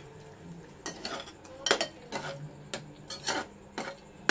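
Metal ladle stirring thick rose apple jam in an aluminium pressure cooker pan, scraping and knocking against the pan's sides and bottom. A string of scrapes and clinks begins about a second in.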